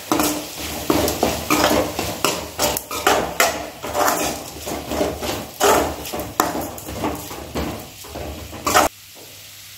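Metal spoon stirring and scraping onion-tomato masala around a metal kadai, with rapid repeated scrapes and knocks against the pan as chilli powder and salt are mixed in. It cuts off suddenly near the end.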